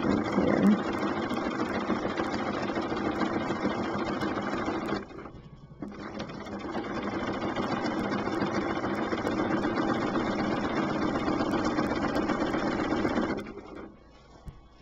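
Domestic sewing machine running steadily, free-motion quilting stitches through a quilt. It stops for about a second roughly a third of the way in, runs again, and stops near the end.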